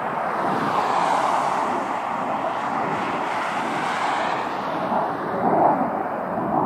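Fighter jet's engines during a display climb: a loud, steady rushing jet noise, with a hiss in the upper range that sweeps up and back down and a swell near the end.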